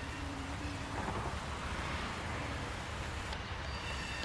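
Low steady rumble of a freight train's two GE B23-7 diesel locomotives, under a rushing hiss of wind on the microphone. A faint set of high steady tones stops with a sharp click at the start and comes back with another click about three seconds in.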